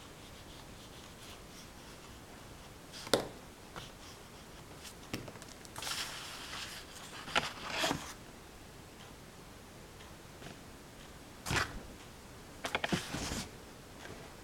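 Handling noise from a sheet of drawing paper being picked up and moved, rustling in short bursts, with a few sharp knocks, over a faint steady hiss.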